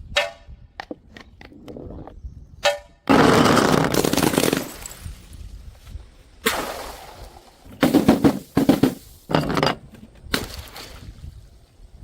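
A series of sharp impacts and crashing, breaking noises from objects being smashed. One long, loud crash comes about three seconds in, and a quick cluster of hits comes around eight seconds in.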